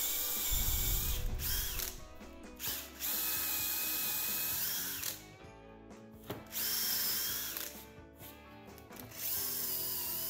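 Handheld power drill boring holes through plywood with a Forstner bit, running in four short bursts with pauses between, its motor whine rising as it starts and falling as it stops.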